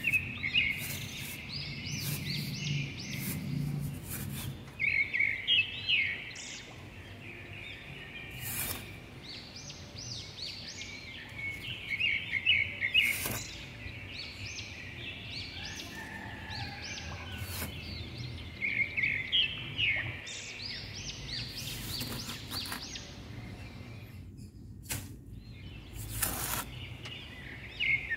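Birds chirping in short, quick trills that come back every several seconds, over scattered scraping clicks of a small shovel digging into damp sand.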